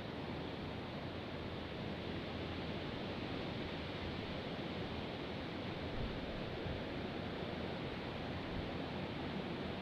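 Strong wind blowing steadily, with a low rumble of wind on the microphone.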